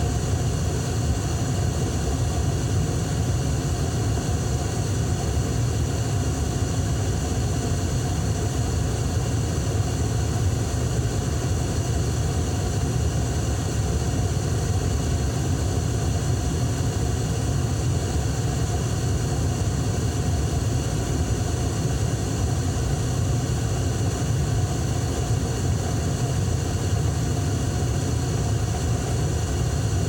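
Furnace burners firing steadily: a constant low rushing rumble with faint steady tones above it, unchanging throughout.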